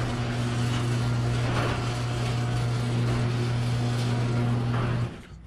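Ceiling-mounted electric garage door opener running as it raises a sectional garage door: a steady motor hum over the noise of the door rolling up its tracks. It stops suddenly about five seconds in.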